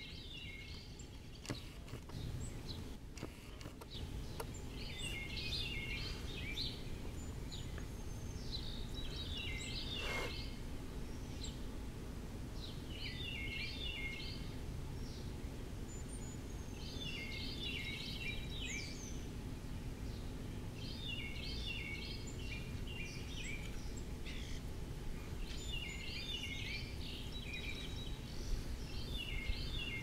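A songbird singing the same short phrase of quick, clustered notes about every four seconds, over a steady low background rumble.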